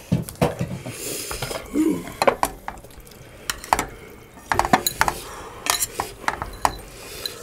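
Chopsticks and utensils clinking and tapping against bowls and a cooking pot as noodles are served from the pot and eaten at the table: a string of light, irregular clinks.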